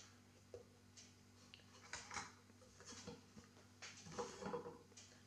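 Near silence: a faint steady electrical hum from the mains test gear on the bench, with a few faint small clicks.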